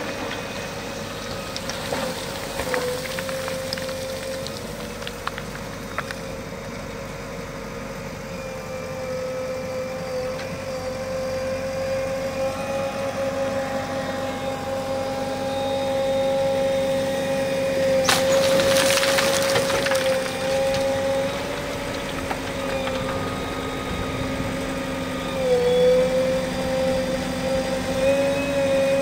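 JCB backhoe loader working river stones: its engine and hydraulics run with a steady whine while stones and gravel clatter in and out of the bucket, with a loud rush of gravel about two-thirds of the way through.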